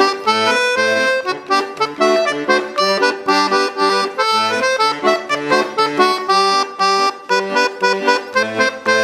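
Accordion playing an instrumental dance tune in a steady rhythm, quick melody notes over recurring bass notes, with no singing.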